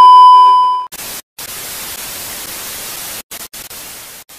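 Editing sound effect: a loud steady beep lasting just under a second, then static hiss that cuts out and back in several times.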